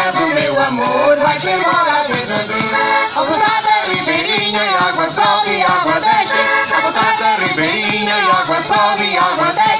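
Instrumental break in a Portuguese folk dance tune: an accordion plays the melody over light shaken percussion, with no singing.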